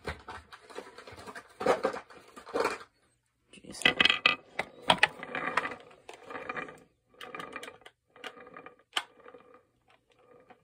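Small hard objects clattering and clicking as they are handled and rummaged through, in irregular clusters of quick knocks. The busiest, loudest stretch comes about four to five seconds in, and it thins to scattered clicks near the end.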